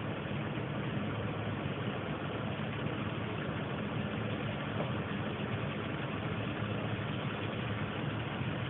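Meat cooking in tomato sauce in a pot on the stove: a steady hiss over a low hum.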